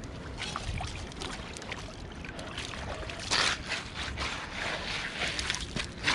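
Water sloshing and splashing, with many small splashes and one louder splash a little past the middle, over a low rumble of wind on the microphone.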